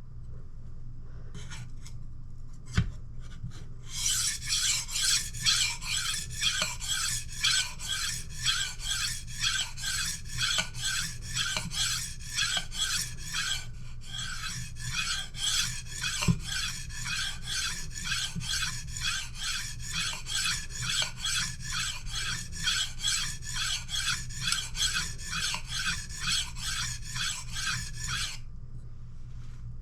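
Kitchen knife blade being sharpened on a whetstone: steady, evenly paced scraping strokes of steel across the stone, with a short break about halfway. A few light clicks come before the strokes start.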